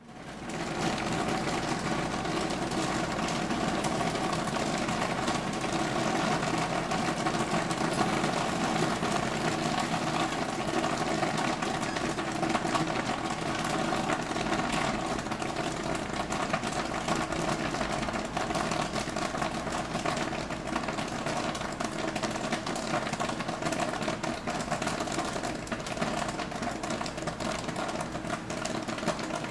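Theater concession popcorn machine running: a steady mechanical hum with a dense, continuous patter of fine clicks, fading in within the first second.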